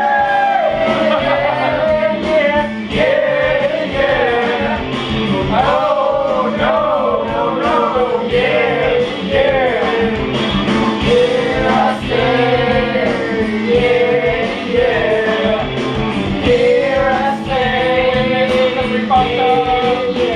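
A song with singing over a band accompaniment.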